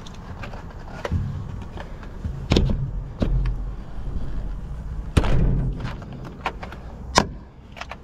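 Hollow plastic knocks and clunks as the cover of a combine harvester's engine air filter housing is pushed and worked back onto the housing by hand, several irregular knocks, the loudest about two and a half and five seconds in, with a sharp one near the end.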